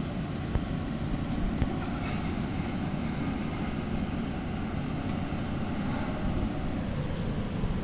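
Excavator's diesel engine running steadily, a continuous low drone, with a couple of faint clicks in the first two seconds.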